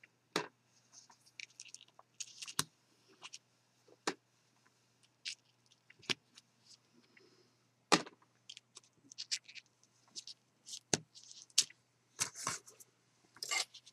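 Hands working cardstock and double-sided sticky strip tape: scattered light taps, clicks and short scrapes and rustles as the tape is laid on and pressed down, over a faint steady low hum.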